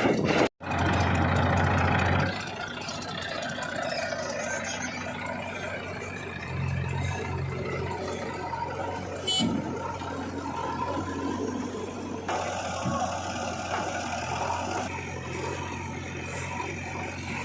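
Diesel engines of a JCB 3DX backhoe loader and a tractor running steadily while the loader works. The sound breaks off abruptly near the start, is loudest for the next couple of seconds, and changes suddenly again about two-thirds of the way through.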